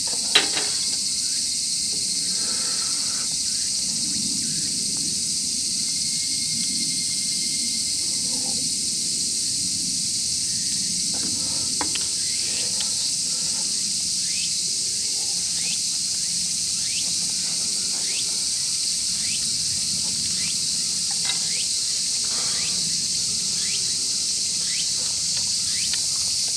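Steady, dense high-pitched insect chorus in summer woodland. A single sharp click sounds near the start, and faint short chirps repeat about once a second in the second half.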